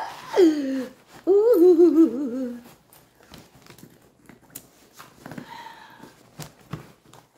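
A woman humming two short, wavering phrases that fall in pitch, loud in the first few seconds. Then softer rustling and small clicks as the fabric bag is handled.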